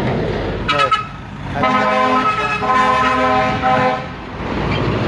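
A vehicle horn gives two long, steady honks back to back, starting about a second and a half in, over the engine and tyre noise of loaded dump trucks driving past.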